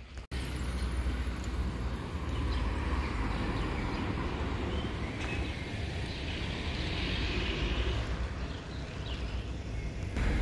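Steady outdoor background noise: a low rumble with a hiss over it, swelling slightly a little past the middle.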